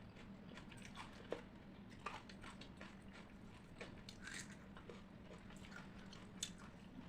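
Close-miked chewing of rice and curry: soft wet mouth smacks and small clicks, a few sharper ones standing out, over a faint steady hum.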